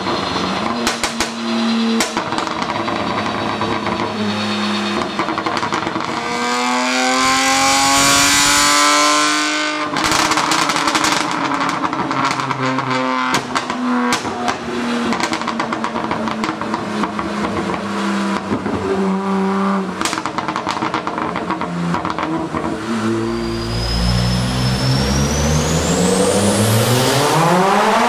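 BMW 1M's twin-turbo inline-six on a chassis dyno, revving and pulling with a rise in pitch that cuts off suddenly about ten seconds in, with sharp exhaust crackles and pops when off throttle. About twenty-three seconds in it gives way to a 540 hp Mitsubishi Lancer Evolution VII's turbocharged four-cylinder starting a pull, its pitch climbing steeply with a high whine rising alongside.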